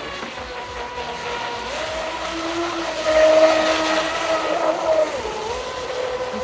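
Motor of an RC offshore racing boat running at speed: a steady whine that rises in pitch about two seconds in, is loudest just after three seconds, and drops back about five seconds in as the throttle is eased for a turn.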